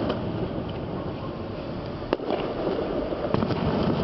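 Fireworks going off: a sharp bang about two seconds in and a fainter crack a little over a second later, over a steady dense rumble of noise.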